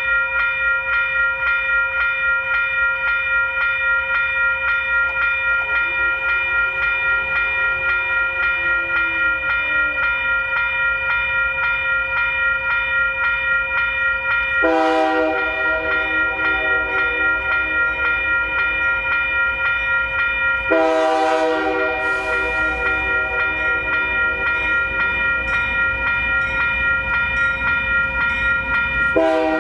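A railroad crossing warning bell rings steadily at the flashing signals. About halfway through, the approaching train's locomotive horn, on Union Pacific AC44CW 6373, sounds two long blasts and begins a third near the end: the horn signal for a grade crossing.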